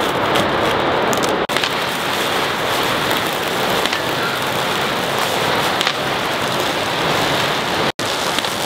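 A big string of firecrackers going off: a loud, dense, unbroken crackle of rapid bangs.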